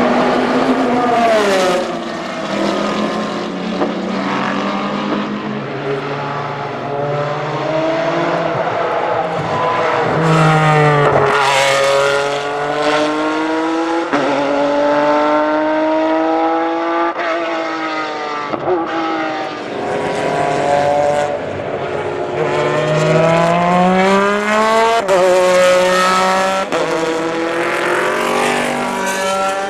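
Porsche 996 GT3 RSR's flat-six racing engine at full throttle, climbing in pitch through each gear and dropping sharply at the upshifts and as it slows for corners.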